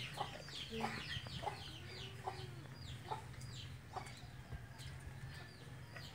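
Chickens clucking and cheeping: short, high chirps falling in pitch, about two a second, with a few sharper clucks among them.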